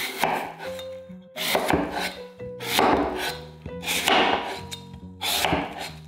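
Kitchen knife slicing through a fresh apple onto a bamboo cutting board, five crunching cuts a little over a second apart, over soft background music.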